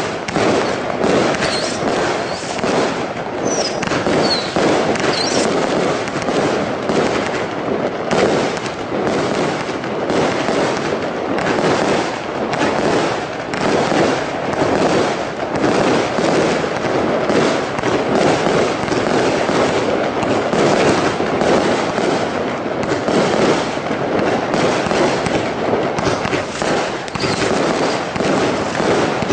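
Brothers Pyrotechnics 'Fireworks Crazy' CE category 3 combination Roman candle firing a continuous rapid barrage of shots, the pops and bangs of the lifts and bursting stars following one another without a break.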